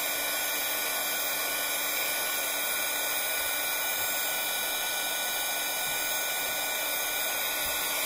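Craft heat tool running steadily, a continuous rush of blown hot air, drying wet watercolour paint on paper before it is glued.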